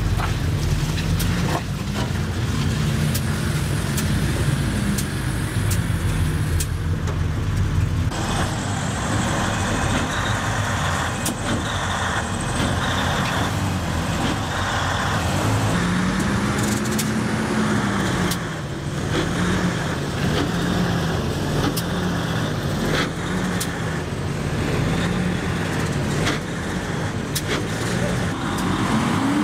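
Truck engines running under heavy load, revving with a pitch that rises and falls over and over, as a pickup strains on a tow strap to drag a semi-truck stuck in mud. Scattered sharp clicks are heard throughout.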